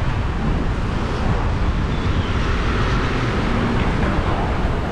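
Steady outdoor rumble of road traffic mixed with wind buffeting the microphone.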